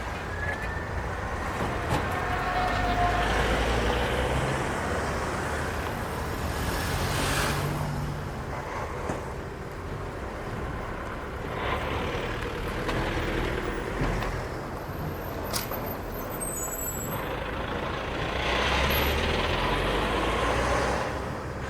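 City street traffic, with the steady rumble of trucks and other vehicles passing and swelling louder and quieter. There is a short hiss about seven seconds in and a louder pass near the end.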